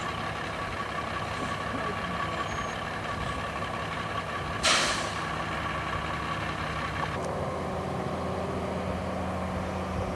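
Diesel engines of heavy logging equipment, a log loader and a logging truck, running steadily. About halfway through comes a short, loud hiss of released air, like a truck's air brake, and a couple of seconds later the engine note changes.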